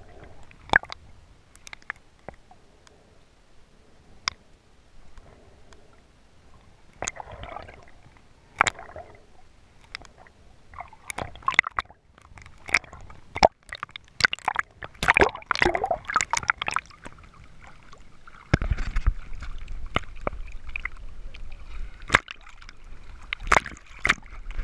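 Water sloshing and gurgling around an underwater camera, with many sharp clicks and knocks against it. About three-quarters of the way in, a steady low rumble sets in under the water noise.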